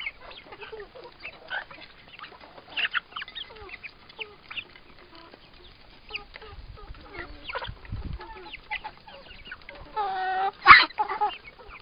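Chickens clucking and cheeping in a mixed flock of hens and young birds, with many short scattered calls and a longer, louder squawk near the end.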